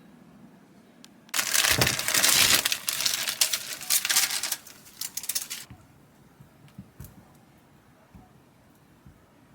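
Packaging being crinkled and torn open, a loud crackling stretch of about four seconds, followed by a few faint clicks.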